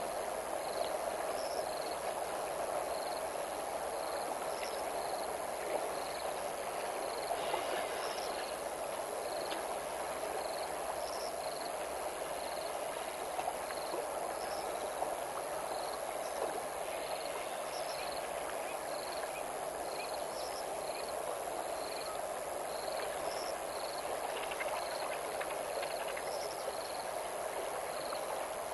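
Steady rushing of a flowing river. Over it, a high short chirp at two alternating pitches repeats regularly about once a second.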